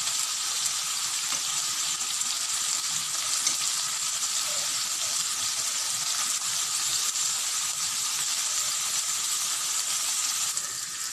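Zucchini slices frying in hot oil in a nonstick frying pan, a steady sizzle that eases slightly near the end.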